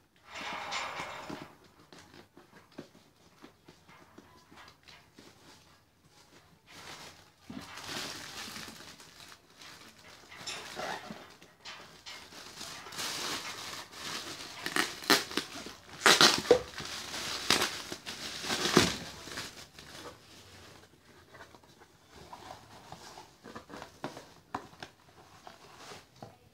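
Plastic bag crinkling and cardboard box and shredded-paper packing rustling as a parcel is unpacked by hand, in irregular bursts that are loudest about 16 to 19 seconds in.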